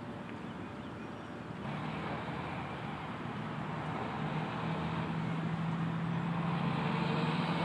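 A motor vehicle engine running with a steady low hum over road noise, growing louder from about two seconds in.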